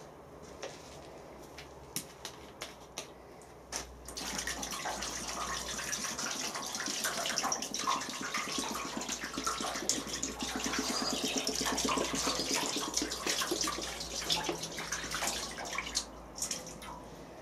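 Water poured from a plastic jug into the steel water tray of a CNC plasma cutting table, splashing into the half inch of water already in the bottom. A few light knocks first, then the pour starts about four seconds in and tails off near the end.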